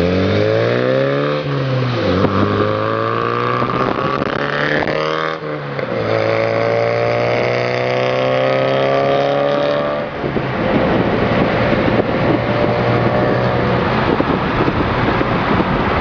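VW Golf Mk2 engine under hard acceleration, the revs climbing and dropping sharply at gear changes about two and five seconds in. It then holds a steady high note until about ten seconds in, after which only a rushing wind and road noise remains.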